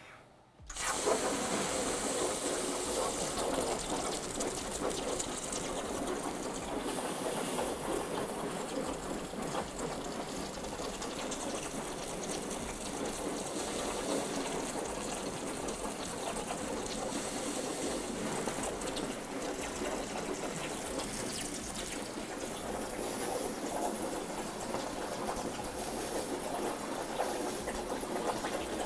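60-amp plasma cutter torch on a CNC plasma table, cutting sheet metal: the arc fires about a second in, then a steady rushing hiss of the arc and compressed air as the torch travels along the cut.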